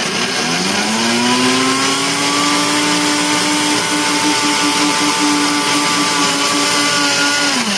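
Countertop blender crushing ice cubes with watermelon and water. The motor spins up with a rising whine, runs at a steady high speed over a grinding, churning noise, then winds down near the end.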